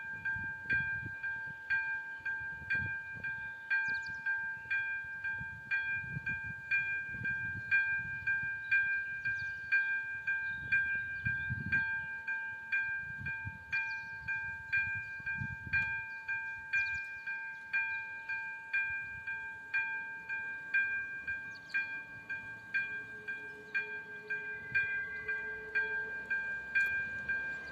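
Railway level-crossing warning bell ringing over and over at an even pace, about one and a half strokes a second, while the crossing's warning is active.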